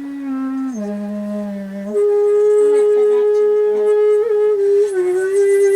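Solo shakuhachi (Japanese end-blown bamboo flute) playing long held notes: a low note that steps down lower about a second in, then a louder, higher note held to the end, with small bends in pitch.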